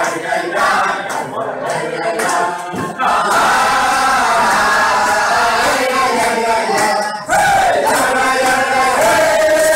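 Crowd of men singing a Hasidic tune together, loud and continuous, with short breaks about three and seven seconds in.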